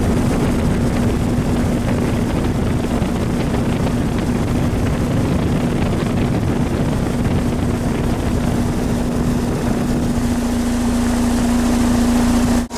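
Outdoor heat pump unit running: the condenser fan blowing steadily over a constant electrical hum from the compressor.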